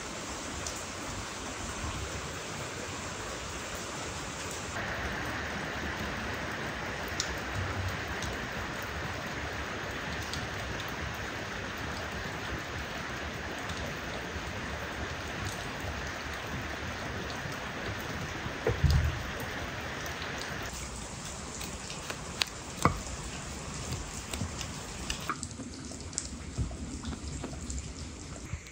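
Steady rain falling, a continuous hiss of drops with scattered drips and light clicks; a single dull thump about two-thirds of the way through.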